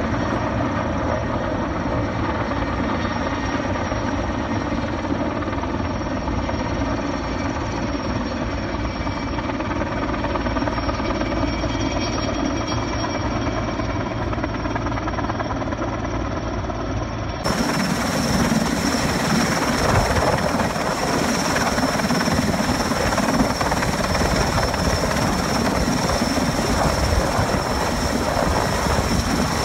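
Erickson Air-Crane (Sikorsky S-64 Skycrane) twin-turbine heavy-lift helicopter hovering with a slung load: steady rotor and turbine noise with several held tones. About two-thirds of the way through it turns suddenly louder and rougher, heard close overhead.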